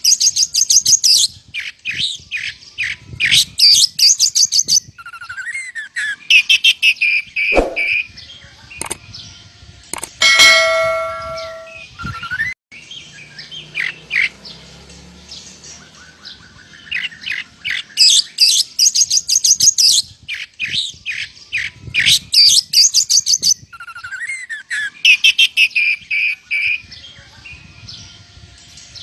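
Oriental magpie-robin (kacer) singing in bursts of rapid, repeated chirping trills, its song filled with mimicked lovebird calls, with short pauses between phrases. A single ringing tone sounds about ten seconds in.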